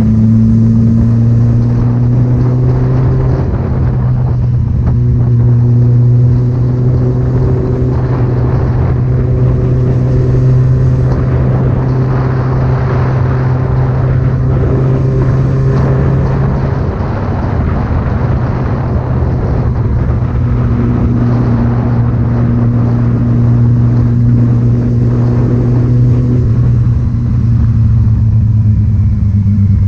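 Loud vehicle engine and exhaust running at a steady, fairly constant speed, its drone holding one pitch over road rumble.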